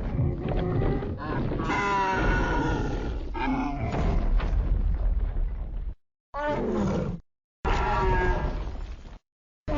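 Film creature sound effects of King Kong from the Monsterverse: a long pitched roar lasting about six seconds, then two shorter roars, each clip cut off abruptly with silence between.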